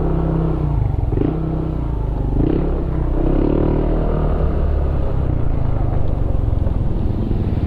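Yamaha Aerox 155 scooter's single-cylinder engine running at low riding speed, its note rising and falling slightly with the throttle.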